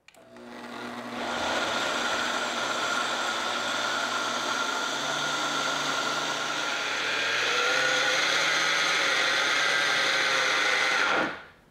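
Countertop blender pureeing thick corn-and-potato soup: the motor spins up over about a second, runs steadily, and winds down near the end.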